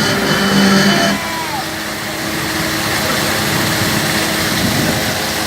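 Fishing boat's engine running steadily; about a second in, its strong humming note drops away and it carries on as a rougher, steady drone.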